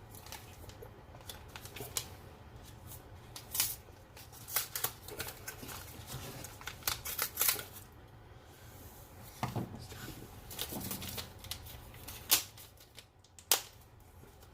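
Small plastic parts bag crinkling and rustling as it is handled, with irregular sharp crackles and clicks.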